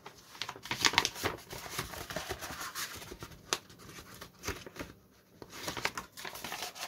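A sheet of Super Coverite fabric model-aircraft covering being handled, rustling and crinkling unevenly, with a sharp crackle about halfway through.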